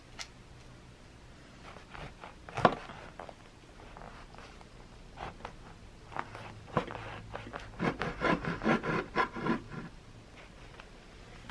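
A knife sawing through a bagel's crust on a wooden cutting board: scattered scraping strokes, a sharp knock against the board a couple of seconds in, and a quick run of strokes at about four a second near the end.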